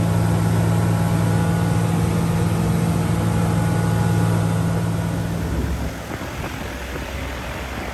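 Viking 130 aircraft engine and propeller droning steadily in cruise, heard from inside the cabin. About six seconds in, this gives way to a lower, rougher, slightly quieter engine sound as the plane taxis on the ground.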